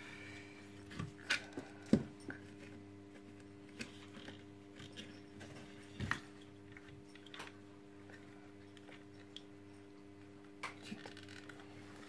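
Scattered light plastic clicks and knocks as the parts of a Zelmer vacuum cleaner's cord-rewind reel are handled and pressed together, over a steady low hum.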